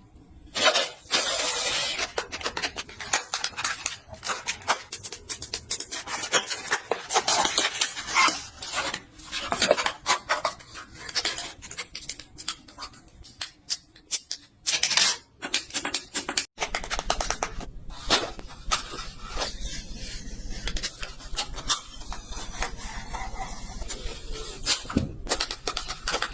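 Packaging being opened and handled by hand: a busy run of rustling, scraping and clicking. About sixteen seconds in, a low rumble joins it.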